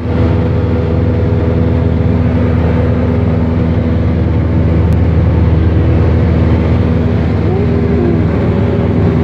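Single-engine light aircraft's piston engine and propeller droning steadily in cruise, heard from inside the cockpit.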